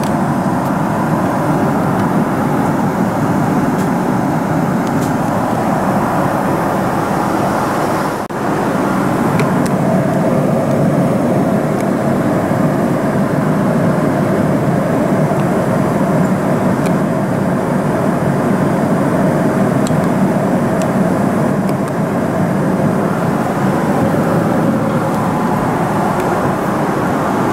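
Steady cabin noise inside a Boeing 777-300ER airliner: an even rushing hum, with a brief dip about eight seconds in.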